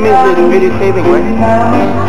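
A man singing live to his own electronic keyboard accompaniment in a reggae arrangement, the voice amplified through a microphone over a steady bass line.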